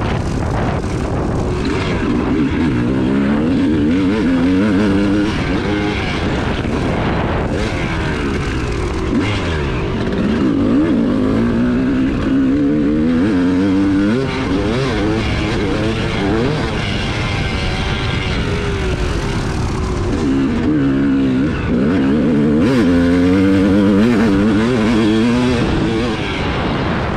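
Yamaha YZ250 two-stroke dirt bike engine being ridden hard around a motocross track, heard from on board. The pitch climbs as the throttle is held open and drops back at gear changes and corners, several times over.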